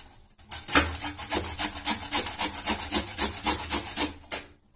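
Raw carrot being grated on a stainless steel box grater: a fast, even run of rasping strokes, about five a second, that stops shortly before the end.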